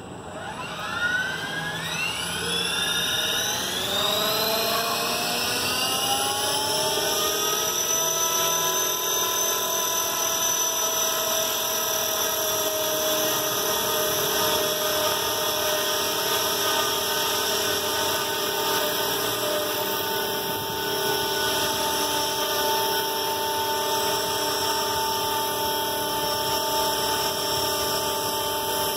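Electric 450-size Align T-Rex RC helicopter spooling up. The motor and rotor whine rises in pitch over the first five or six seconds, then holds steady as the model lifts into a low hover.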